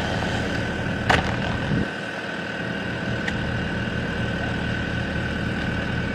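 An engine idling steadily, with a steady high whine over it and one sharp knock about a second in.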